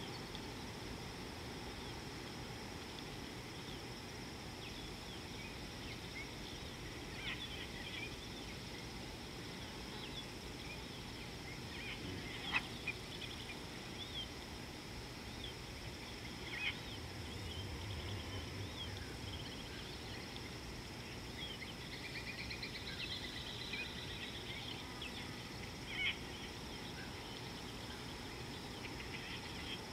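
Open-air waterhole ambience: a steady insect hum and hiss with scattered short bird chirps and a warbling bird call a little after two-thirds of the way in. A low pulsing rumble comes briefly just past halfway, with a few sharp clicks here and there.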